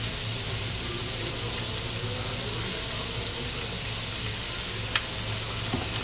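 Sliced vegetables and meat sizzling steadily in a nonstick frying pan over a low hum, with one sharp click about five seconds in and two softer ticks near the end.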